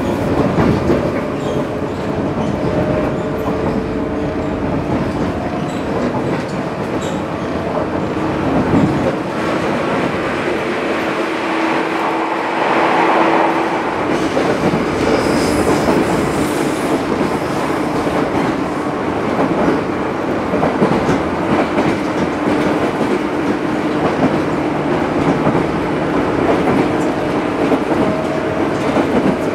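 Interior running noise of a JR 113 series electric train under way: a steady hum with a few held tones, over the clickety-clack of the wheels on the rail.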